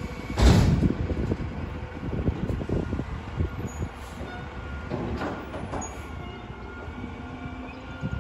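Garbage truck engine running with a steady low rumble, with a heavy bang about half a second in and scattered metal knocks and clanks from the bins being handled.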